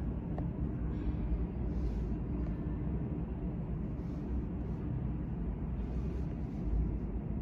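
Steady low background rumble with a faint hum running through it, with no distinct events.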